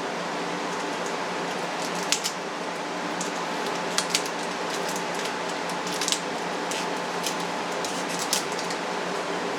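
Paper and tape being handled by hand, with scattered sharp crackles and ticks about every two seconds over a steady low hiss and hum.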